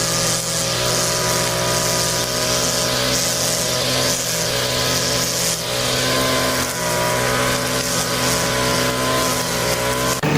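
An engine running steadily at a constant speed, with a hiss above it.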